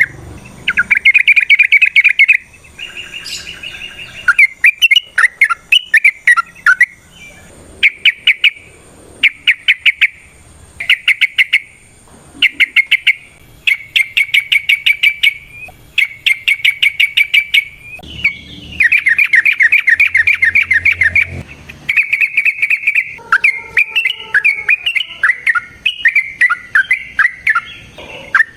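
Yellow-vented bulbul (trucukan) singing in loud, rapid chattering bursts, each a second or two of fast repeated notes, over and over with short pauses between. Near the end the song turns into more varied, warbling phrases.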